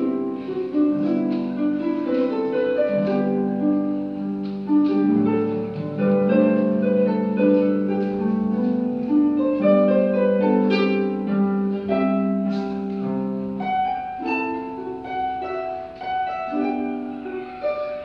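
Concert pedal harp played solo: plucked notes and chords ringing into one another, with deeper bass notes coming in and the playing growing louder about five seconds in.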